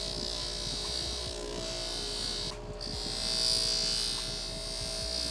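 A bench-mounted abrasive wheel running steadily, with the hiss of a motorcycle shift lever pressed against it as scrapes are ground out. The hiss breaks off briefly about two and a half seconds in, when the part comes off the wheel, then resumes.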